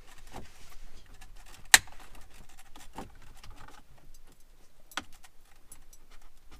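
Plastic pry tool working a dash trim panel loose on a 2018 Jeep Wrangler JL, with sharp plastic clicks and snaps as the retaining clips give. The loudest snap comes about two seconds in, and smaller clicks follow near three and five seconds.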